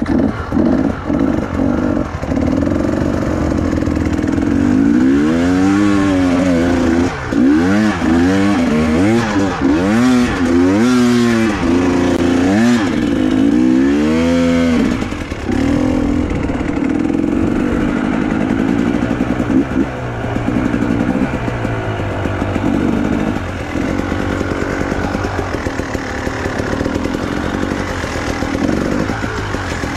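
Honda CRF trail bike's single-cylinder four-stroke engine being revved up and down over and over for about ten seconds, as the throttle is worked on a climb, then running steadily under throttle.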